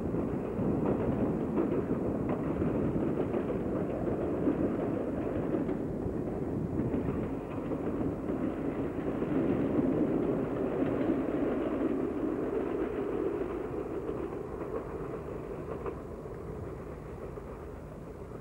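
Yellow-and-blue Renfe diesel railcar running along the line, a steady rumble that fades gradually over the last several seconds as it moves away.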